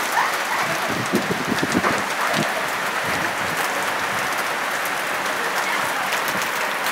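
Steady hiss of water from a stream overflowing after heavy rain, with a few short low knocks between about one and two and a half seconds in.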